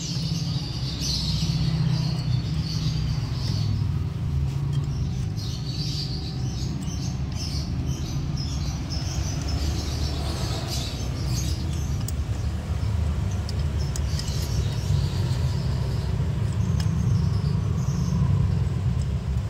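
A steady low rumble, with small birds chirping in short bursts over it.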